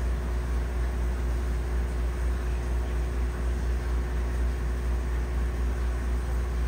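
Steady low rumble and hum of running aquarium equipment, with a faint constant tone and an even hiss.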